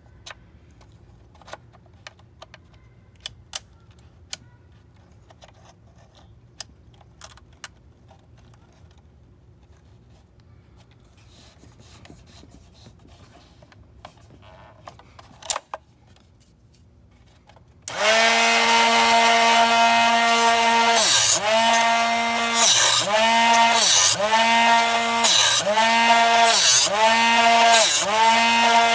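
Scattered light clicks and taps as the drill bit is reset in the chuck. About two-thirds of the way in, the Drill Doctor 500X bit sharpener's motor starts with a loud, steady whine, its pitch sagging with a gritty hiss about once every two thirds of a second as the bit is turned against the grinding wheel.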